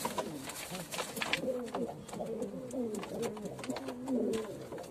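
Domestic pigeons cooing: several overlapping coos that swoop up and down in pitch, with a few light clicks among them.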